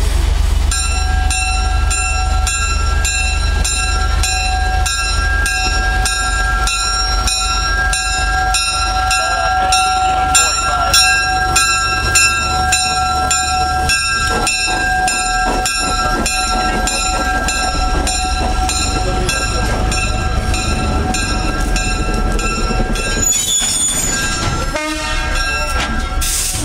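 Locomotive bell on USA 7751 ringing steadily, about three strokes a second, over the low rumble of the passing train. The bell stops a few seconds before the end, and a short burst of other noise follows.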